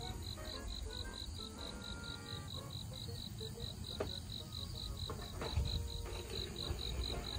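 An insect chirping in a steady high-pitched pulse, about five chirps a second, with faint background music underneath.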